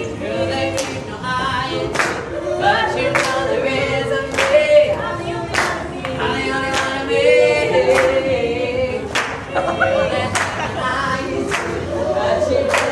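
A small group of male and female performers singing a cappella in close harmony. Hand claps keep a steady beat, a little slower than one a second.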